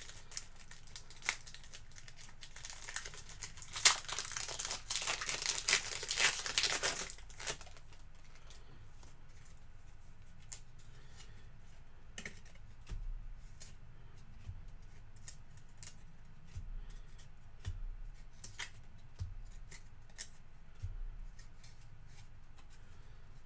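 A trading-card pack wrapper crinkles and tears for about five seconds, with one sharp click near the start. It is followed by scattered light ticks and soft taps of cards being handled on a desk.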